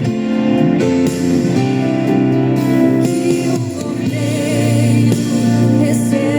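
Christian worship song playing: voices hold long sung notes over a steady instrumental accompaniment.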